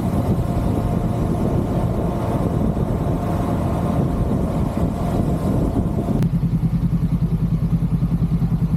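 KTM Duke 200's single-cylinder engine running steadily, with a faint whine that the owner cannot explain and that a shop found nothing wrong behind. About six seconds in there is a click, and the sound turns suddenly duller and lower, pulsing several times a second.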